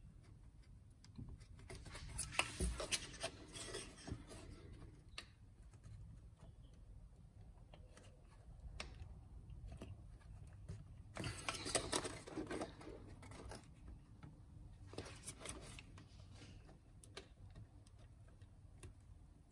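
Faint rubbing, scraping and small clicks of hard plastic as fingers wiggle and pry an ignition coil and its connector loose on a Porsche Cayenne 3.6 V6 engine. It comes in irregular bursts, busiest about two seconds in and just past the middle.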